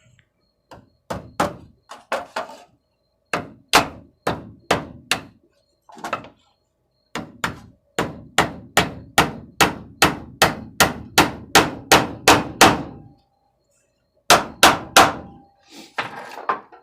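Hammer blows on the metal drawer, in runs of quick strikes at about three a second with short pauses between runs, a faint ring hanging after some strikes.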